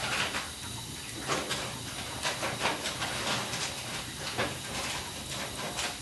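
Wood fire burning in an open fireplace: the logs crackle and pop irregularly over a steady hiss.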